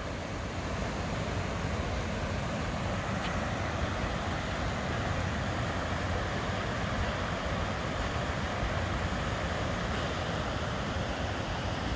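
Waterfall on the Big Sioux River rushing steadily, its flow a bit low.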